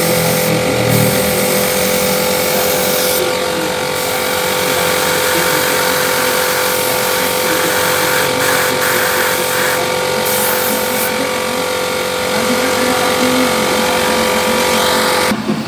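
Air compressor running steadily with the constant hiss of a paint spray gun laying on candy-tone paint; the hum holds an even pitch and cuts off abruptly near the end.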